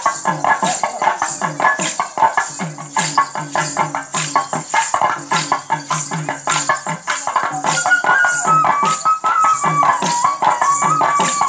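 Kolatam folk dance music: a steady beat of sharp clicking strikes, about two or three a second, with jingling on top, under a held melody that moves up and down in steps near the end.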